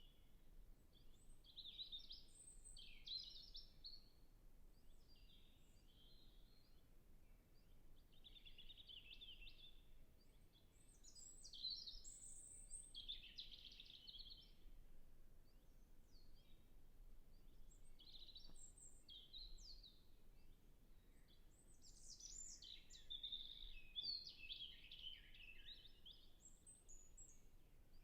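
European robin singing: a run of short, high, varied twittering phrases, each a second or two long with brief pauses between them, faint over a quiet background hiss.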